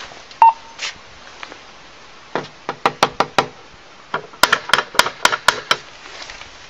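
Knocking on a house's front door in two quick rounds, about five knocks and then about eight. A short electronic beep comes about half a second in.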